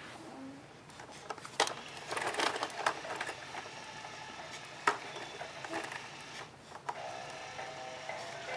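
Several sharp clicks and rattles from an infant bouncer's plastic toy bar. About seven seconds in, the toy bar's electronic melody starts playing in steady notes.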